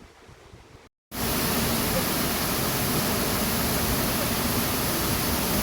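Rushing water of a waterfall, a loud steady hiss that cuts in abruptly after a brief silent gap about a second in; before the gap, only a faint low rumble.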